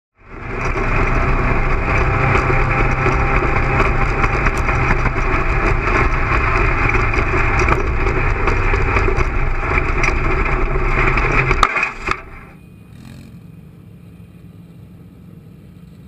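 Off-road race vehicle running flat out at night, engine and road noise heard muffled from an onboard camera. It cuts off about twelve seconds in, leaving a much quieter steady background.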